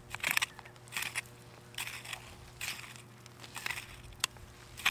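Small hand hoes scraping and chopping into loose soil while Chinese artichoke tubers are dug out: a gritty crunch roughly once a second, with one sharper click near the end.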